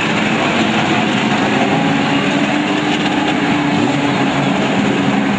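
A pack of VW Gol and Gacel touring cars racing through a bend, several engine notes overlapping in a steady drone.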